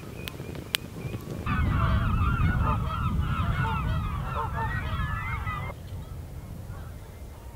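A flock of geese calling, many honks overlapping, from about one and a half seconds in until shortly before the end, over a low rumble. A few sharp crackles from a wood fire come in the first second.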